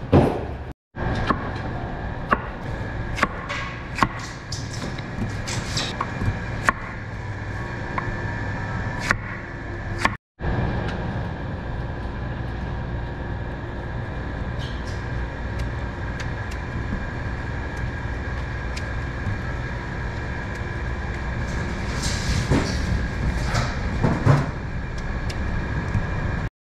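Steady low machinery hum in a work room, with scattered short knocks and scrapes of a large knife cutting and trimming daikon radish on a plastic cutting board. A cluster of louder scrapes comes near the end.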